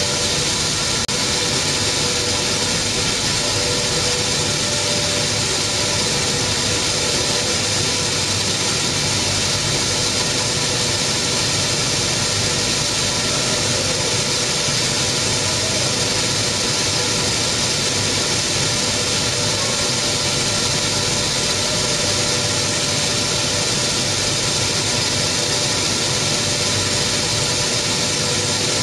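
Maize milling plant machinery running: a steady, loud mechanical hum and hiss with a few faint steady tones, unchanging throughout.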